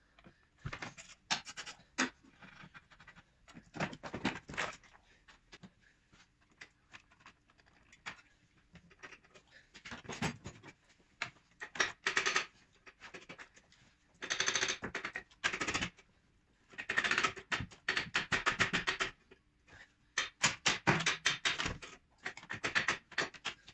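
Hand tools at work in a car's engine bay during dismantling: repeated short bursts of rapid clicking, like a ratchet spanner undoing bolts, with scattered knocks and taps of tools on metal and plastic.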